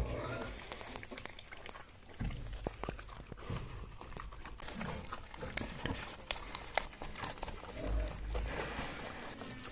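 Pigs grunting in their pen, with scattered clicks and knocks from movement.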